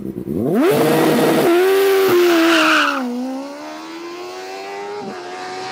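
Formula Student race car's Yamaha R6 inline-four sport-bike engine revving hard on a standing-start launch, with a loud rush of tyre noise through the first couple of seconds. The revs rise and drop back at each quick upshift, and the engine keeps pulling as it fades into the distance.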